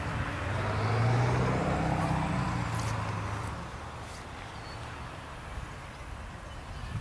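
A motor vehicle's engine passing by, swelling to its loudest about a second in and fading away over the next two or three seconds.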